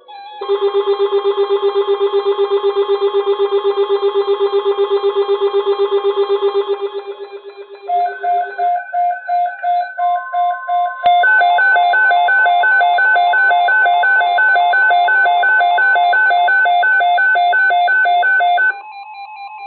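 Emergency alert tones: a loud, fast-pulsing electronic alarm tone for about eight seconds, then a two-tone beeping alarm alternating high and low beeps a few times a second. A steady tone joins underneath about ten seconds in, and the alarm cuts off suddenly near the end.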